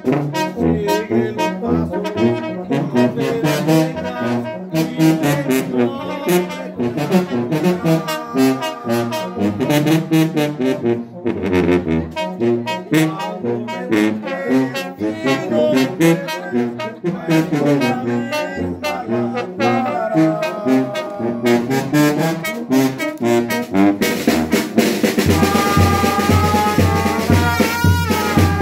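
A brass band of trumpets and a sousaphone playing a tune, the tuba carrying a moving bass line under the melody. About four seconds before the end the music changes to long held notes over an even bass beat.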